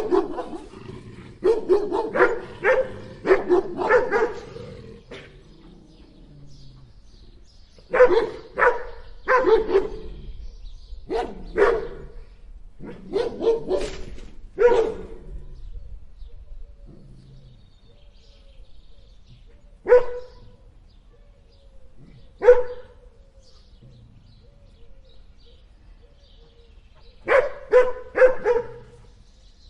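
Big dogs barking in bouts: a quick run of barks at the start, further groups of barks with short gaps, two lone barks about twenty seconds in, and a final quick run near the end.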